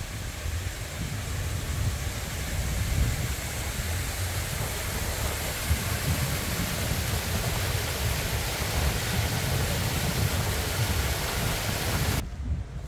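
Shallow sheet of water running down a sloped paved plaza: a steady hiss of flowing water, with wind rumbling on the microphone underneath. The water hiss cuts off abruptly near the end.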